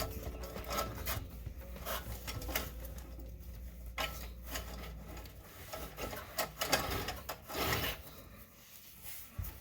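Irregular rubbing, scraping and clicking of metal hardware being worked by hand, with a low steady hum under the first half that drops away about halfway through.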